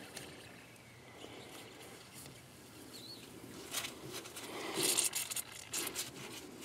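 Air bleeding out past the loosened bleeder screw on a 1A-25B heating-oil filter housing as fuel oil fills it: a faint hiss at first, then a crackly sputter of air and oil spitting out from about four seconds in. This is the housing being purged of air after a filter change.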